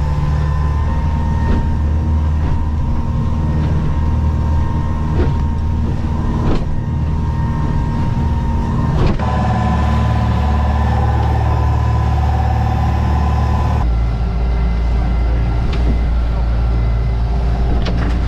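Boat engine running steadily at speed under way through choppy water, a loud continuous drone with a few short knocks from the hull.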